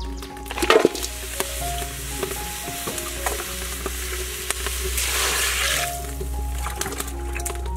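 Raw chicken feet tipped into a large aluminium cooking pot, with a loud knock about a second in, then a hissing rush as water is poured in over them. Soft background music plays throughout.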